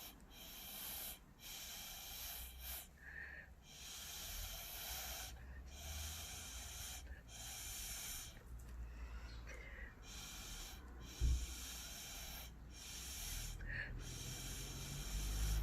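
Repeated puffs of breath blown through a straw onto wet acrylic paint to push it across the canvas, one after another about once a second. A single low thump about eleven seconds in.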